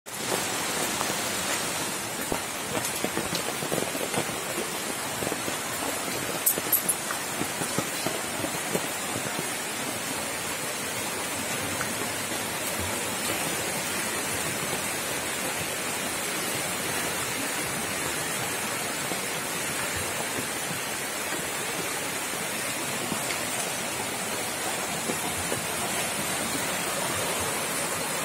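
Floodwater of a swollen river rushing past in a steady, unbroken hiss. A few sharp clicks sound over it in the first several seconds.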